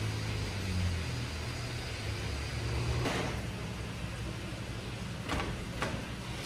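Motor vehicle noise: a steady low rumble, with brief whooshes about three seconds in and twice near the end.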